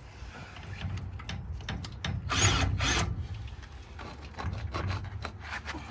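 Power drill driving an RV stabilizer jack, running in a short burst about two seconds in and briefly again near the end, with rubbing and knocking between, as the stabilizer foot is pressed down onto a SnapPad.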